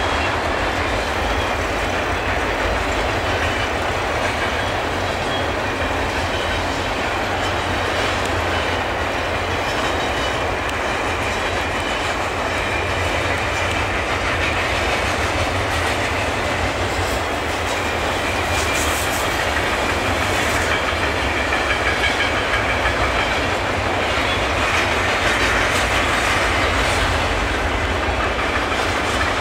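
Freight train of flatcars carrying military vehicles rolling steadily past, a continuous noise of steel wheels on the rails.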